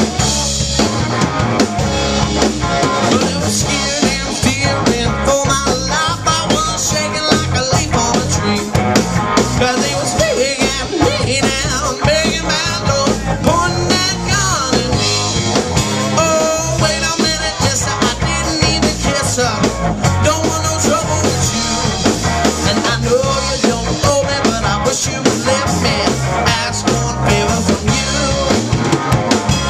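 Live rock band of electric guitar, bass and drums playing an instrumental stretch of a Southern rock song, with a lead line of bent, wavering notes over a steady drum beat.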